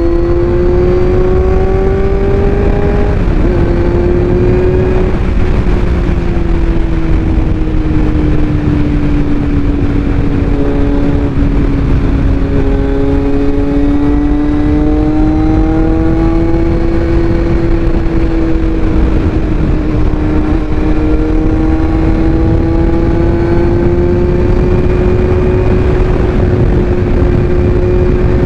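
Kawasaki Z900 inline-four engine running with its exhaust bread box (the pre-chamber under the engine) removed, held at a steady high engine speed, its pitch drifting slowly up and down over a heavy low rumble.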